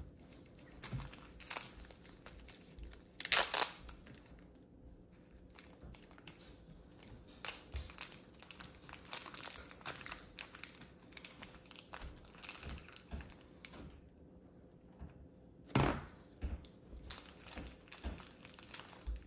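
Thick slime being pressed and squished into its plastic tub by hand, a run of small crackles, clicks and squelches, with a louder burst about three seconds in and another around sixteen seconds. Toward the end a small plastic bag of charms crinkles as it is handled.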